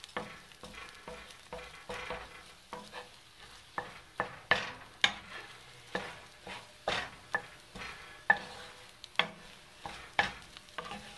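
Wooden spatula scraping and stirring scrambled eggs in a frying pan in irregular strokes, about one or two a second, over the faint sizzle of the eggs cooking in olive oil on medium heat.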